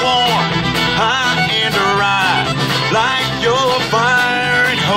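Acoustic string band playing a country-bluegrass song.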